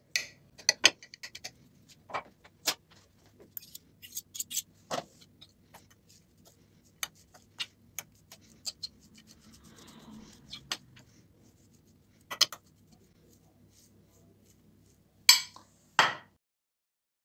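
A metal utensil clinking and scraping against a glass baking dish while mashing and stirring a soft cheese filling, a string of sharp irregular clicks. Softer rustling of hands mixing the filling comes near the middle, and two louder knocks come near the end before the sound cuts out.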